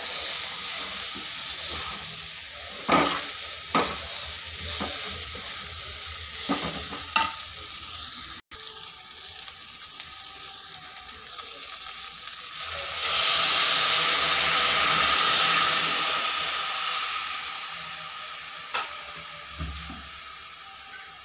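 Sevai (vermicelli) frying in a metal kadai while a metal spatula stirs it, with a light sizzle and a few sharp clinks of the spatula against the pan. About halfway through, water is poured into the hot pan and sets off a loud sizzling hiss that dies down over a few seconds.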